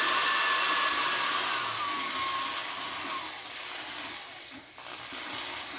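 Electric drill running as it bores a wing-mount hole in an RC airplane, its motor whine dropping in pitch about two seconds in and easing off briefly near the end.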